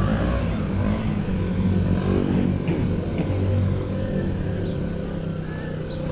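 A motor vehicle's engine running close by in the street: a steady low engine hum, a little louder around two to three and a half seconds in.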